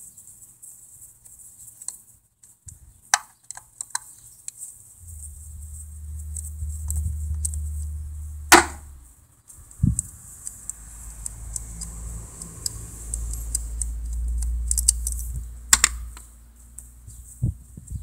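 Scattered tool clicks and light knocks as a Torx bit and hand work the ignition coil hold-down bolts on a Chrysler 2.7L valve cover, with sharp clicks about halfway through and near the end. A low rumble comes and goes in between.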